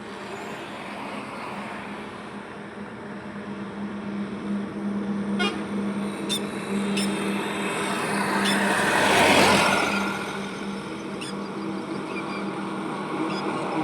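Highway traffic with a steady engine hum; a vehicle passes loudly about two-thirds of the way through, and short horn toots sound in the middle.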